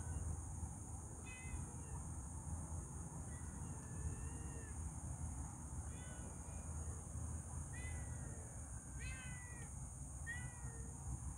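A cat meowing repeatedly: short calls every second or two, a few of them longer and bending up and down in pitch.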